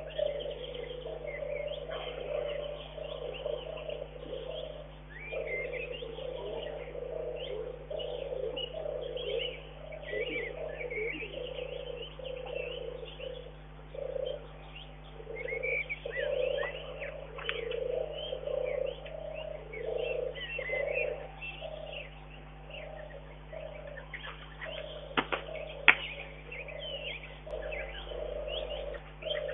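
Doves cooing over and over in short low phrases, with small birds chirping higher up and a steady low hum beneath. Two sharp clicks near the end, the second the loudest sound.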